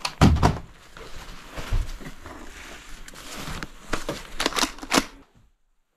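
A person moving about and handling things in a small enclosed space: irregular knocks, thumps and rustling, with a loud thump just after the start and a few sharp clicks near the end. The sound then cuts off suddenly to silence.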